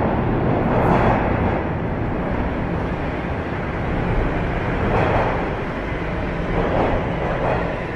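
Steady rumble and hiss of an underground subway platform, swelling a few times.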